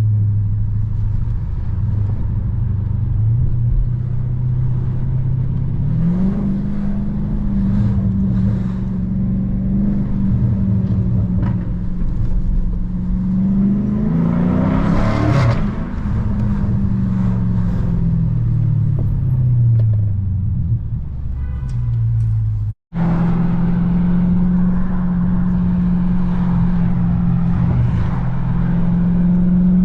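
Car engines and road noise in traffic, a steady drone that rises in pitch about six seconds in. Around the middle a vehicle passes close, its engine pitch sweeping up and then back down. The sound cuts out for an instant near the end.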